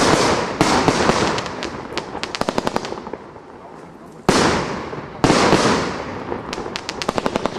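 1897 Golden Salute firework firing shot after shot: two loud bangs at the start, then two more about four and five seconds in. Each pair of bangs is followed by a rapid run of crackling pops that dies away.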